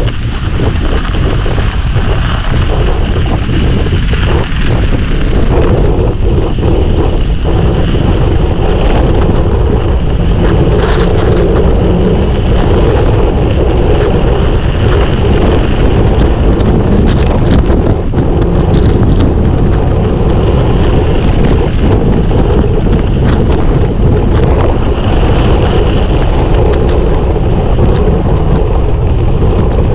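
Wind buffeting the microphone of a camera riding on a mountain bike downhill, over a steady rolling rumble with scattered clicks and rattles from the bike.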